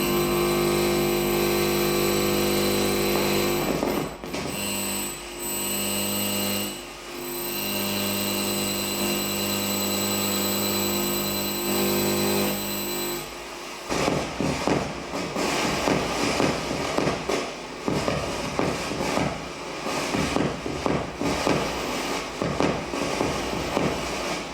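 Live experimental sound performance. A loud, sustained drone of stacked held tones breaks off briefly a few times. About halfway through it gives way abruptly to a dense, rapidly pulsing, scratchy texture of many short strokes.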